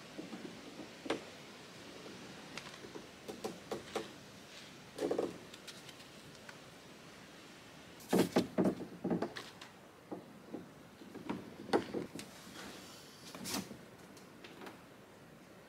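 Scattered knocks and rattles of 3/4-inch PVC pipe against a canoe hull as a pipe frame is handled, with a louder run of knocks about eight seconds in.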